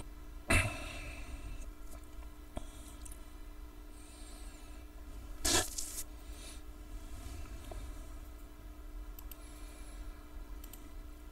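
Room tone through the narrator's microphone: a steady faint hum and hiss, with two short soft noises, about half a second in and about five and a half seconds in.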